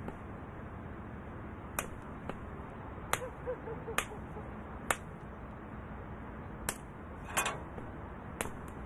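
Sharp, irregularly spaced knocks of a stick striking the branches of a fruit tree to knock the fruit down, about six of them, with a brief rustle of leaves a little after the middle.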